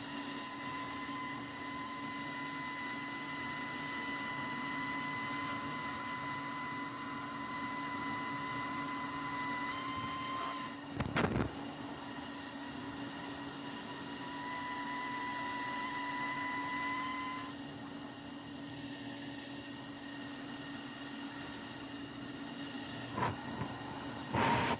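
LUD-200LLC ultrasonic drilling machine running as it cuts a heart shape into a gemstone, a steady hiss with a high whine. The whine drops out after about ten seconds with a short knock, returns for a few seconds, then stops.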